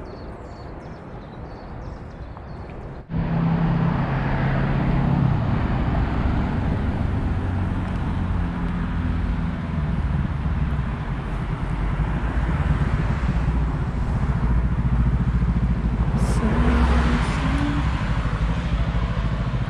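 Road traffic: cars driving past on a city street, a steady engine and tyre rumble that jumps abruptly louder about three seconds in. Near the end a brief rising engine note is heard.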